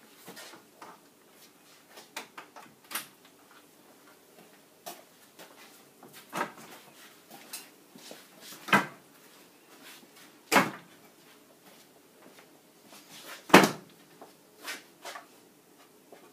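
Painted wooden bunk bed frame knocking and bumping as the top bunk is lifted and lowered onto the bottom bunk's dowels: a series of irregular wooden clunks, the loudest about nine, ten and a half and thirteen and a half seconds in.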